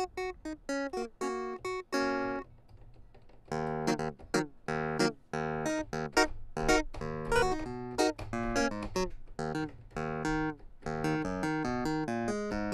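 Logic Pro X's Vintage Clav software instrument, an emulated clavinet, played from a keyboard: a quick line of short, sharp-attacked notes, a pause of about a second, then a busier run of notes.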